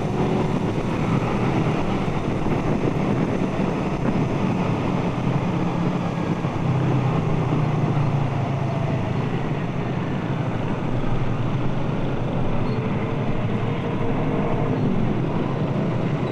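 Suzuki Satria F150 fuel-injected single-cylinder engine running steadily as the motorcycle rides at low speed through city traffic, heard from the rider's seat with road and wind noise.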